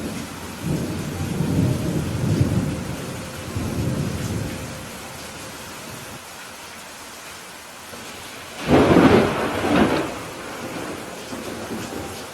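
Steady rainfall with thunder. A low rolling rumble swells and fades over the first few seconds, and a louder, sharper thunderclap comes about nine seconds in.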